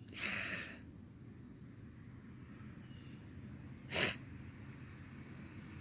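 Two short, breathy, snort-like noises from a voice: a huff lasting about half a second near the start, then a shorter, sharper snort about four seconds in.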